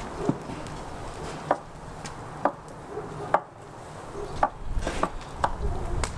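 Kitchen knife cutting raw rib meat on a wooden cutting board, the blade knocking on the board in sharp, irregular strikes about once a second.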